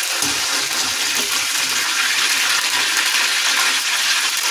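Arrowroot-coated mushroom pieces deep-frying in hot oil in a steel pan: a steady sizzle of bubbling oil. The pieces are fried through.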